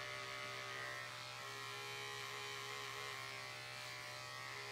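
Electric dog grooming clipper left running with a steady buzzing hum.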